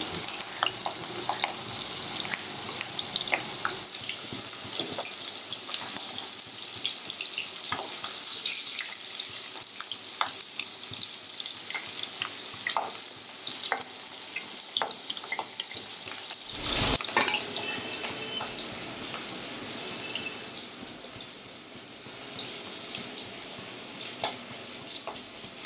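Prawns frying in hot oil in a kadai, a steady sizzle full of small crackles and spits, with a metal spatula stirring and lifting them in the pan. A single brief thump about two thirds of the way through.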